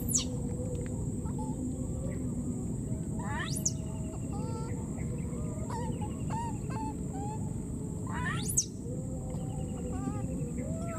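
Short shrill animal calls that sweep sharply upward in pitch, about four of them a few seconds apart, with softer short chirps in between. Under them run a steady high-pitched hum and a low rumbling noise.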